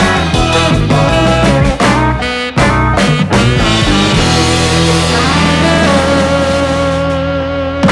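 Background rock music with electric guitar and a steady beat. It breaks briefly about two and a half seconds in and ends on a held chord that rings out.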